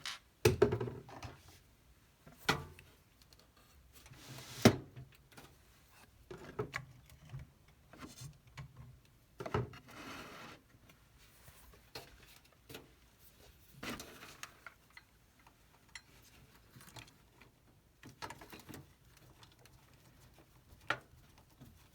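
Screwdriver and metal parts clicking, knocking and scraping while a CPU heatsink's mounting screw is driven in. Irregular short knocks, with a longer scrape about ten seconds in.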